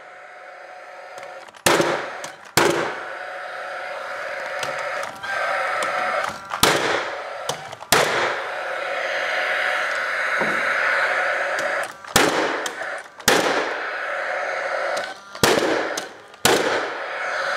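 Paslode cordless framing nailer firing nails into a wooden stud: eight sharp shots, mostly in quick pairs, over a steady background noise.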